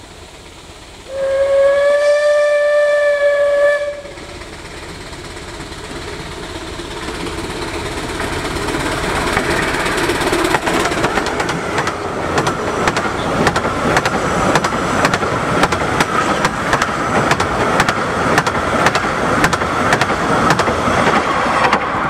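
Bure Valley Railway No. 7 Spitfire, a 15-inch gauge steam locomotive, gives one long whistle blast of about three seconds. Its working exhaust and running gear then grow steadily louder as it charges up the bank and its carriages roll past with a rapid, rhythmic clatter.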